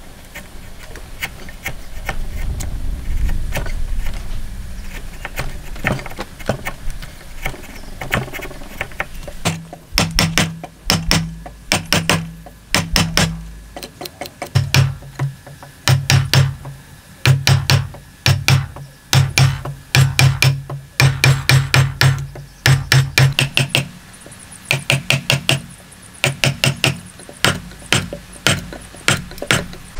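Hammer blows driving a chisel into a timber beam to chop out a joint, in quick runs of sharp strikes, each with a short low ring. For about the first nine seconds there is only quieter paring and scraping of the chisel against the wood.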